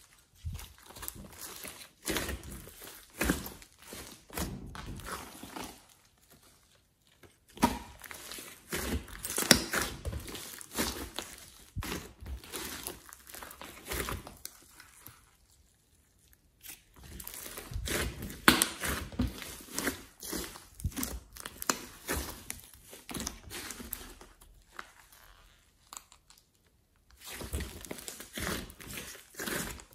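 Hands kneading, folding and squeezing a large mass of clay-mixed slime: sticky squishing with dense crackling and popping as air pockets burst, in bouts broken by a few short pauses.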